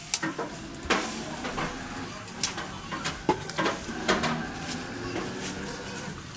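Dry leaves crackling and rustling as they are handled and torn by hand, with irregular sharp snaps loudest about one, two and a half, three and four seconds in.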